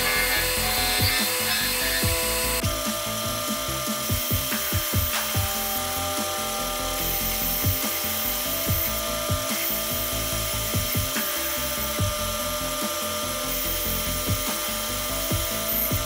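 Metal lathe running, its boring bar cutting the inside of a spinning steel tube, with a steady whir and ticking from the machine. Background music with a steady beat plays over it.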